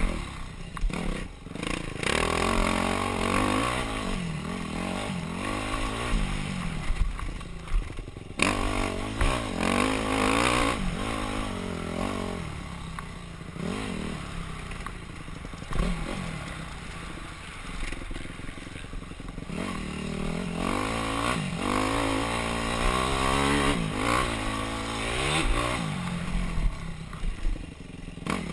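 Yamaha YZ250F four-stroke single-cylinder dirt bike engine, ridden hard, revving up and falling back again and again as the throttle and gears change. Rattling and scraping of the bike over rough ground, recorded from the rider's helmet.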